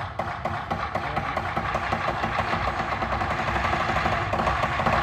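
Lion dance percussion, drum and cymbals, playing a fast continuous roll that swells steadily louder.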